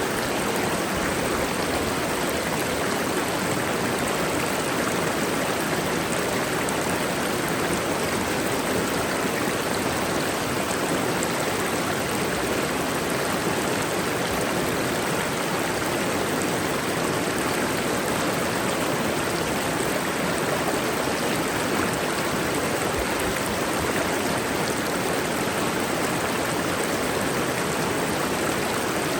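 Mountain waterfall and stream water rushing steadily, an even, unbroken roar of falling and flowing water.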